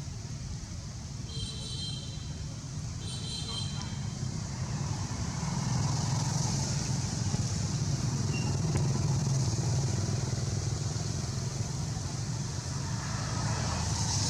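Motor vehicle engine rumble, growing louder about five seconds in, as of traffic passing, over a steady hiss. Two short high-pitched sounds about a second and a half apart come near the start.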